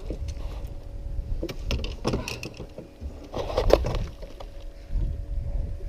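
Scattered knocks and handling clatter on a small fishing boat over a steady low rumble of wind on the microphone, the loudest clatter about two-thirds of the way through.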